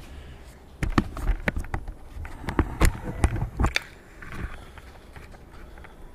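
Scattered clicks and knocks of someone moving about and handling things, with several sharp ones in the first four seconds, over a low rumble.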